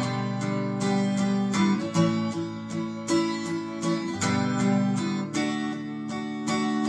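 Background music: an acoustic guitar strumming chords in a country song, an instrumental passage with no singing.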